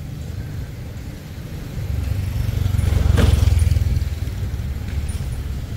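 A motor vehicle passing by: a low rumble that swells about two seconds in, peaks near the middle and then fades.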